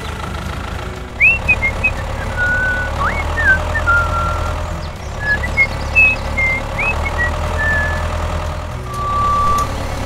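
Tractor engine sound running steadily with a low rumble, with short high whistled chirps over it. A steady beep tone sounds about nine seconds in.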